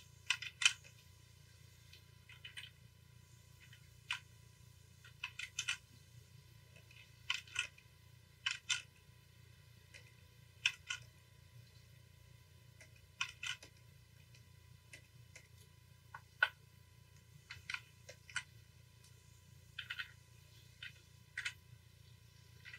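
Scattered short clicks from computer input devices at a desk, many in quick pairs a fraction of a second apart, over a low steady electrical hum.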